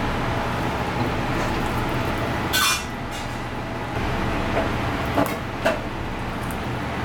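Steady low background hum. About two and a half seconds in, a single sharp metallic clink with a brief ring as a kitchen knife is set down, then two light knocks near the end as hands work fish on a plastic cutting board.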